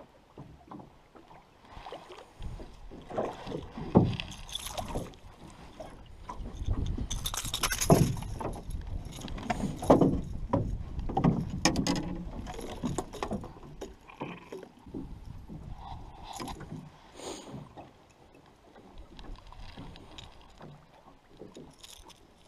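Irregular knocks and thumps on an aluminium boat as a freshly landed northern pike flops on the floor and is handled, loudest in the first half, then fewer and quieter knocks.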